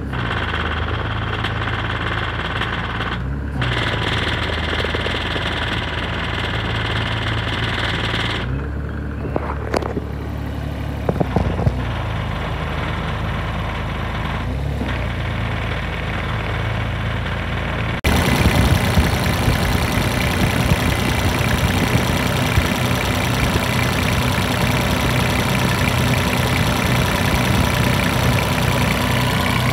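Kubota diesel engine of a Eurocomach ES28.2ZT mini excavator idling steadily. About 18 seconds in it becomes louder and clattery, heard up close in the open engine bay.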